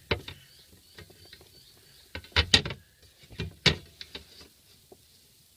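A cut flat aluminium sheet is being offered up against the car's steel body panel, making scattered light knocks, taps and scrapes. The loudest come in a cluster about two and a half seconds in and again a little before four seconds.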